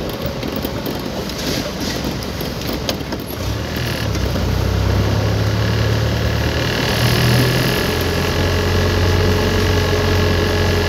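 Delivery truck's engine running, heard from inside the cab. About four seconds in a steady low engine hum comes up and grows louder, then holds, with a small change in pitch a few seconds later.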